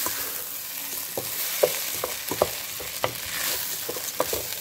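Red lentils and diced vegetables sizzling in a pot while a spatula stirs them, with irregular light scrapes and taps of the spatula against the pot.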